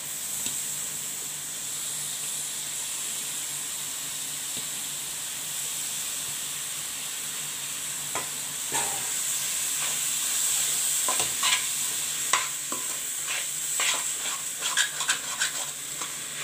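Shelled shellfish meat frying in tomato masala in a steel pan, with a steady high sizzling hiss. From about halfway in, a steel spoon stirs and scrapes against the pan with sharp clinks, more often near the end.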